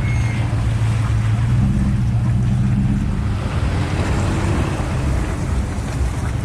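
Off-road 4x4's engine running with a steady low hum, under a constant rushing noise of water.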